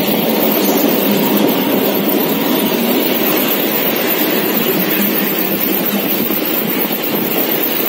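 Moving passenger train heard from inside the carriage at an open, barred window: a steady running noise of wheels on track and rushing air.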